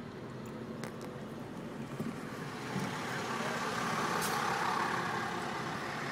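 A motor vehicle running, with engine hum and road noise that grow louder about halfway through.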